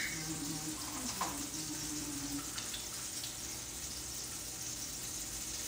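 Food frying in butter in a pan, a steady sizzle with a few faint clicks.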